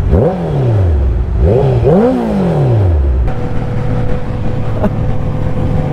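Honda inline-four sportbike engine revved twice, each time rising quickly and falling away slowly. After a cut about three seconds in, the same bike drones at a steady pitch at speed.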